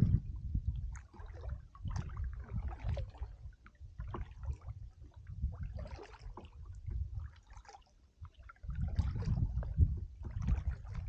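Kayak paddle strokes in calm water: water splashing and dripping off the blades in short, irregular patters. Under them runs a low rumble that grows louder near the end.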